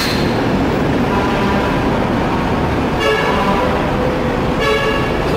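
Steady street traffic noise with two short vehicle horn toots, about three seconds in and again near the end.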